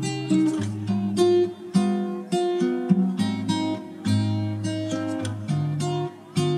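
Background music: a melody of plucked acoustic guitar notes, one every half second or so.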